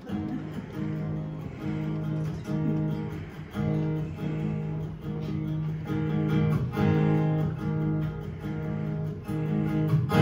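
Acoustic guitar strumming a repeated chord pattern in a steady rhythm at about 140 beats per minute: the instrumental intro before the vocals come in.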